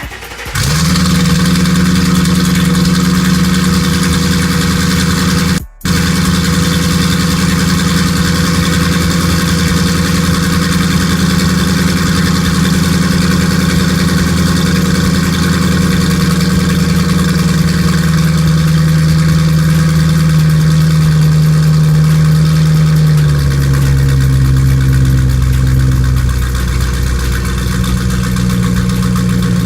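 Straight-piped Ford Mustang exhaust at idle, loud and steady. A brief gap in the sound comes near six seconds. The idle drops in two steps about two-thirds of the way through, then rises again near the end.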